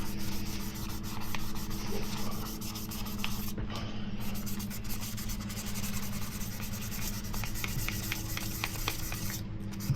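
Wet sandpaper rubbed by hand over a scratched polycarbonate camera dive case, a continuous scratchy rubbing, over a steady low hum.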